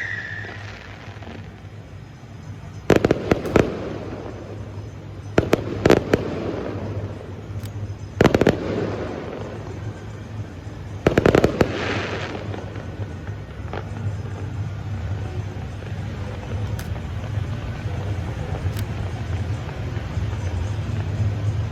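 Aerial fireworks shells bursting in four volleys of sharp bangs, about every two and a half to three seconds, each with a short rumbling tail. A steady low hum runs underneath.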